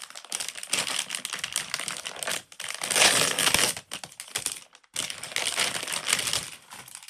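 Plastic packaging crinkling and rustling as it is handled, with a dense crackle that pauses briefly about five seconds in.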